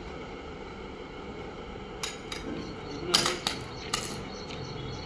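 Steady machine hum, with a few sharp metallic clinks and knocks about two to four seconds in.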